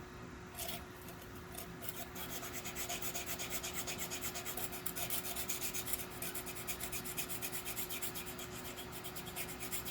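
Small bead file rasping in a hole in a vintage Leslie speaker's upper rotor, cleaning the hole out. The strokes start about two seconds in and run fast and even, several a second.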